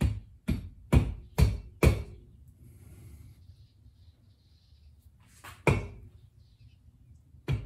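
Sharp knocks of a hammer or mallet striking a Buell XB9 motorcycle engine's cylinder head to break it loose from the cylinder. There are five quick blows in about two seconds, a pause, then two more near the end.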